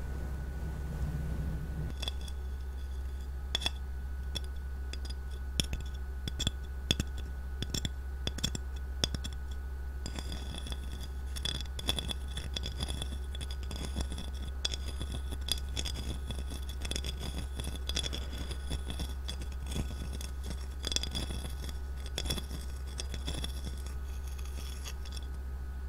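Polished palm stone handled in ringed hands: many small, irregular glassy clicks and light scrapes over a steady low hum.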